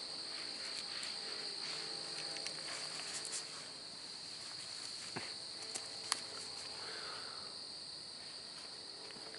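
Steady high-pitched chorus of night insects such as crickets. A few short sharp clicks stand out about five to six seconds in.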